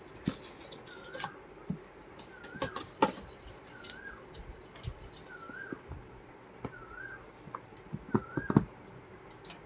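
Clicks, taps and rustles of a smartwatch box and packaging being opened by hand, with a cluster of louder knocks near the end. Throughout, a short high warbling chirp repeats about once a second.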